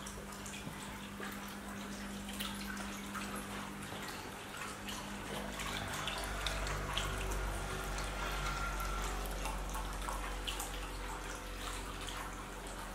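Trickling, dripping water over a steady low hum, with scattered small ticks; a low rumble comes in about six seconds in.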